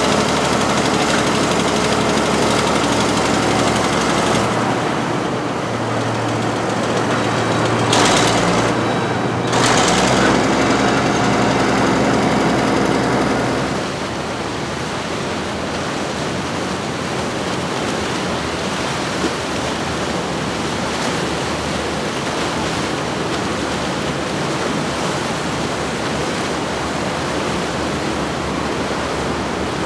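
Fjord 40 Open motorboat running past at speed, its engines giving a steady rumble over the rush of its wake. About 14 seconds in the engine note drops away, leaving a steady rush of churned water and wind.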